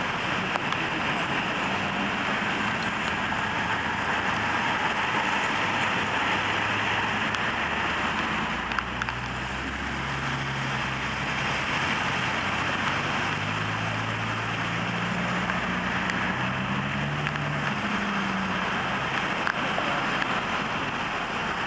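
Steady road-traffic noise, with a vehicle's low engine hum coming up and falling away between about 8 and 19 seconds in.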